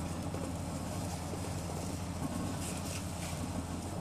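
Sugar syrup boiling hard in a steel pot on a gas stove: a steady low rumble with a hiss of bubbling.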